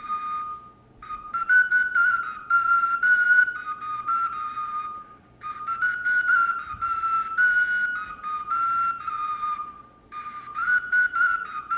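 Clay ocarina played in short phrases of high, clear notes stepping up and down among a few pitches, with brief breath pauses between phrases, as the instrument is tried out note by note.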